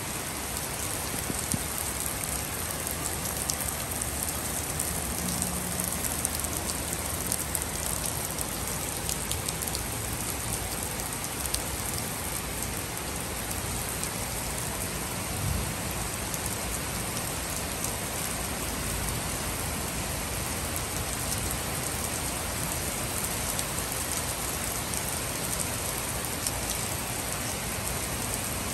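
Heavy rain falling steadily on a wooden deck and its surroundings: a constant hiss with many sharp ticks of single drops close by.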